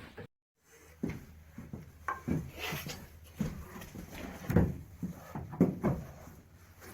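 Wooden juniper slabs knocking and thudding as they are handled and stacked, a string of irregular wooden knocks.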